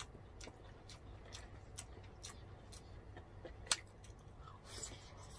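Faint, close-up eating sounds of people eating rice and fish with their hands: scattered mouth clicks and chewing, with one sharper click a little after halfway and a short breathy hiss near the end.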